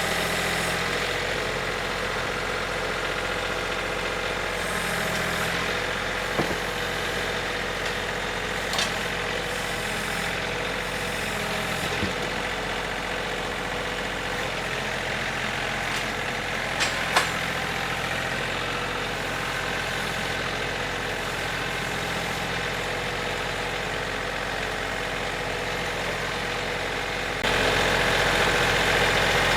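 Gasoline engine of a homemade sawmill running steadily as it saws a tulip poplar log, with a few sharp ticks. It gets louder near the end.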